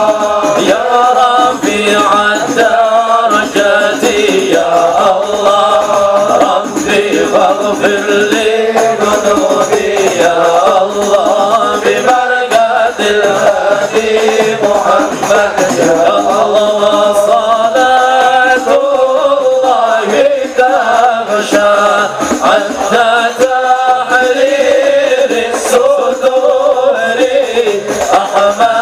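Voices singing Arabic sholawat (Islamic devotional praise of the Prophet), accompanied by hadroh frame drums (rebana) beating a steady, dense rhythm.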